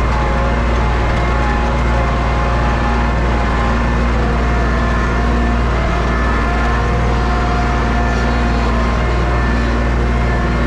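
Tractor engine running steadily under load while pulling a potato-digging V-plow through a row.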